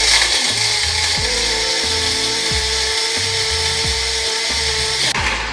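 Ordinary countertop blender (not a Vitamix) running, chopping a chunky sauce of sun-dried tomatoes and dates with a steady whirring motor whine that cuts off about five seconds in. Background music with a low beat plays underneath.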